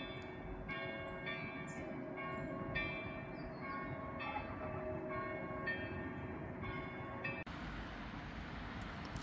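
Church bells ringing a peal of repeated, overlapping strikes, each note ringing on. About seven and a half seconds in the bells cut off abruptly, leaving a steady hiss.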